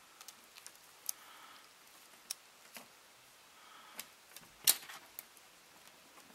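Small metal clicks and taps of a steel cable clamp and its nuts being handled and fitted onto a steel cable, with one sharper click about two-thirds of the way through.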